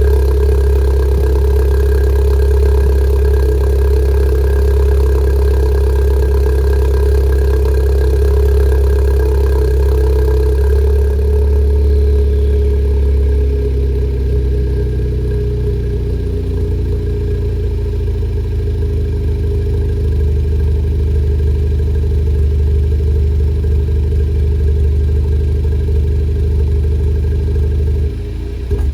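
VW Golf Mk7.5 1.4 TSI turbocharged four-cylinder idling through a modified exhaust with an aftermarket downpipe, no resonator and an aftermarket rear muffler. It runs steady and deep at a cold-start idle, then settles a little lower and quieter a little over a third of the way in.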